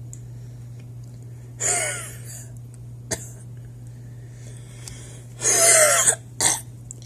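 A person coughing and clearing their throat in short fits: one burst about one and a half seconds in and a louder one about five and a half seconds in, followed by a brief third. A steady low hum runs underneath.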